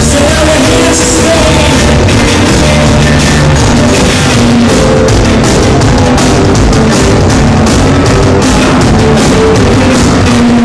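Live rock band playing loudly: electric guitars, keyboard and drum kit together in a steady beat.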